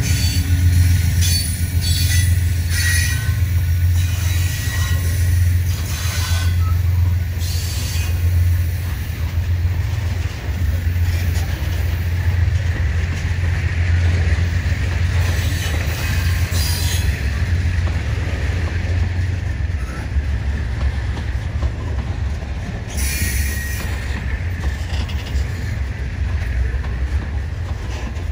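Coal hopper wagons of a freight train rolling past: a steady low rumble of steel wheels on the rail, with short high-pitched wheel squeals breaking in several times.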